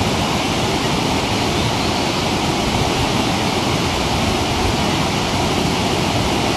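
Steady, loud rushing of white water in a rocky mountain stream and its waterfalls, an even roar with no change.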